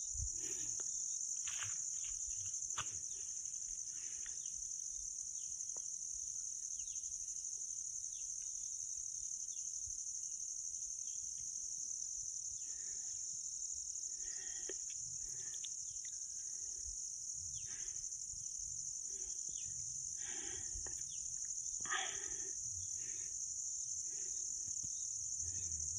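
Steady, high-pitched chorus of insects in wet forest, unbroken throughout, with scattered short, faint calls over it.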